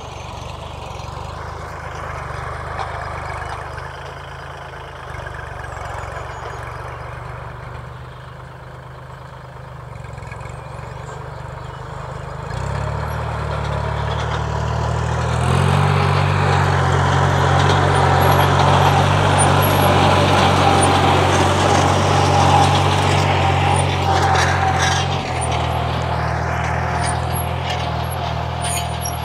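Tractor diesel engine running steadily under load while ploughing dry soil. It grows louder and heavier about halfway through, with a steady whine over it in the later part.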